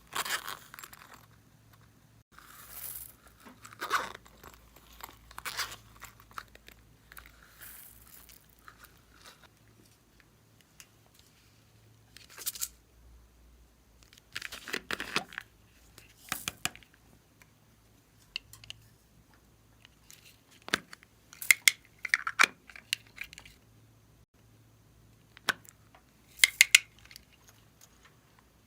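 Slime being worked by hand along with plastic piping bags: short crinkly, crackling handling noises, about a dozen scattered bursts with quiet between them and the loudest near the end.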